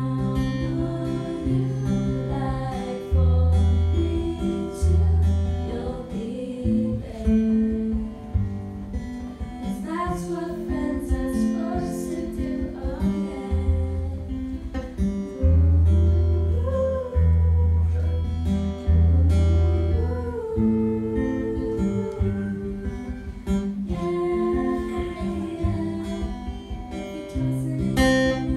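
A live song: an acoustic guitar plays chords under women singing into microphones.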